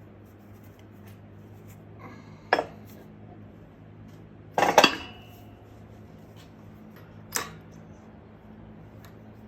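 Metal tools or parts clinking as they are handled and set down: one sharp clink about two and a half seconds in, a louder ringing clatter just before the five-second mark, and a lighter clink about seven seconds in. A steady low hum runs underneath.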